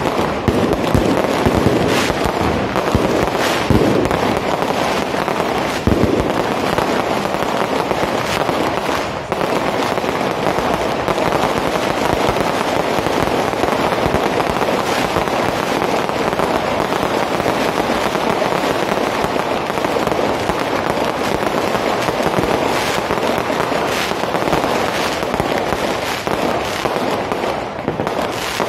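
Fireworks going off without a break: a dense, steady crackling with aerial shells bursting overhead and several louder bangs.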